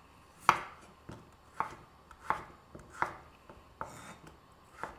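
Chef's knife slicing a raw peeled potato into wedges on a wooden cutting board: about six sharp knocks of the blade reaching the board, roughly one every three-quarters of a second, the first the loudest.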